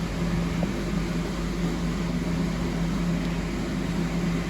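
A steady mechanical hum with one constant low tone and an even background hiss, unchanging throughout.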